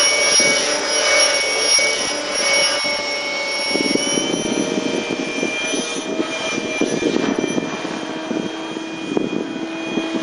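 Electric T-Rex 600 RC helicopter in flight, its motor and rotors giving a steady high whine. From about four seconds in, a rougher, fluttering rotor noise joins.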